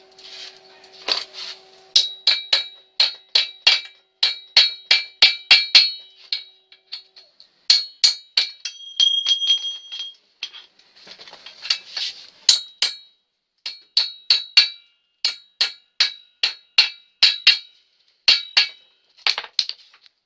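Steel bearing cups of a bicycle bottom bracket being tapped into the frame's shell: a long run of sharp metal-on-metal strikes, several a second in bursts with short pauses between, each ringing briefly.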